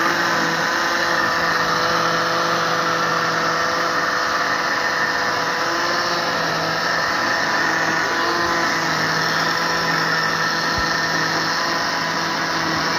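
Electric countertop blender running steadily at one speed, blending bananas and milk into a shake.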